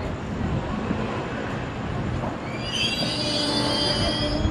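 Taiwan Railways EMU800 electric multiple unit rumbling along the platform as it arrives and brakes. A high-pitched squeal sets in a little past halfway and continues.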